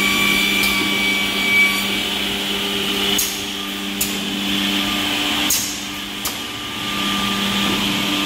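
Automatic edge banding machine running, a steady hum and whine from its trimming and cutting motors, with about four sharp clicks in the middle.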